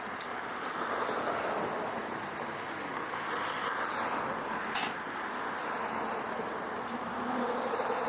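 Road traffic noise, with cars passing on the street, and a single sharp click about five seconds in.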